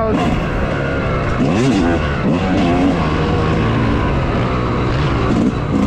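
Dirt bike engine being ridden hard, revving up and dropping back several times as the rider works the throttle and gears.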